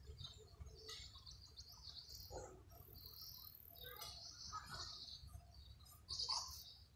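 Faint birds chirping, with a low rumble of wind on the microphone.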